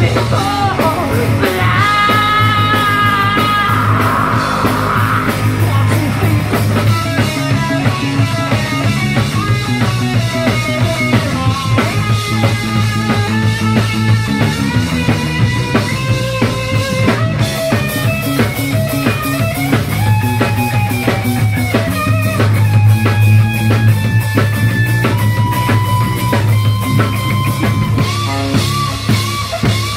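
Live rock band playing, with drums and electric guitar under a sung vocal.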